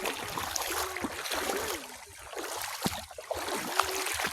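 Water splashing and flowing, with small irregular clicks and splashes.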